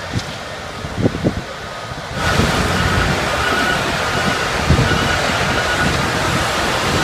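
Construction machinery running at a concrete pour, with wind gusting on the microphone. About two seconds in, a louder steady rushing noise with a faint high whine starts suddenly.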